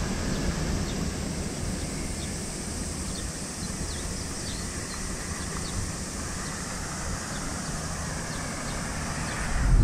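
Outdoor ambience: a steady high-pitched hiss with a few short bird chirps in the middle.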